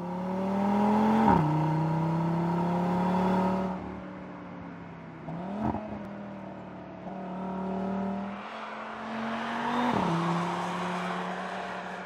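Audi RS3's 2.5-litre turbocharged five-cylinder engine pulling hard through the gears: the revs climb steadily and drop sharply at an upshift about a second in and again near the end. In between it eases off the throttle, with a quick blip of the revs around the middle.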